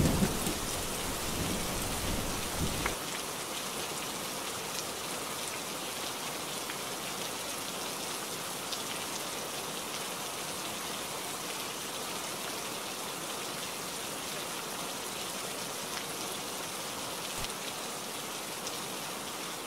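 Heavy rain falling on leaves and surfaces: a steady, dense hiss. A low thunder rumble dies away over the first three seconds.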